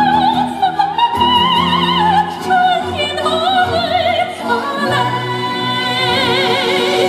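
A woman singing a slow melody into a microphone with backing music, her voice carrying a wide vibrato. She holds a long note over the last two seconds or so.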